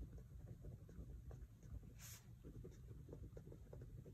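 Faint scratching of a pen writing on lined paper, in quick, irregular strokes.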